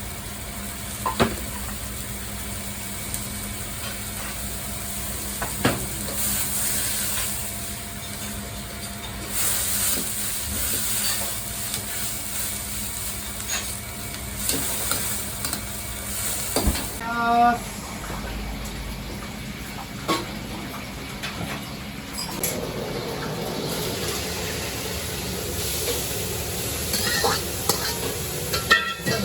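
Food sizzling in a wok, rising in several swells, with a metal ladle stirring and knocking sharply against the wok a few times.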